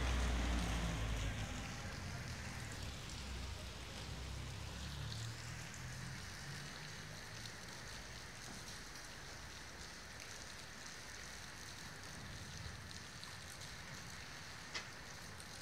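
Steady rain falling at night, an even hiss. A low rumble fades out over the first two or three seconds, and there is one sharp click near the end.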